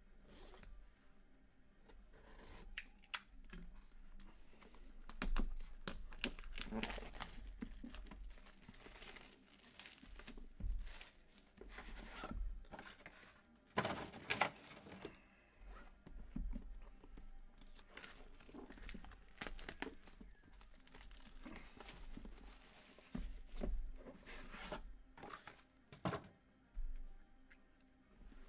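Plastic shrink wrap being torn and crinkled off sealed trading-card boxes, with scattered sharp clicks and cardboard scrapes as the box lids are worked open.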